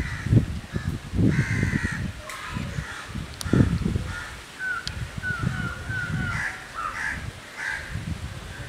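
Crows cawing repeatedly, with a run of short calls near the middle, over irregular low rumbles that are loudest in the first few seconds.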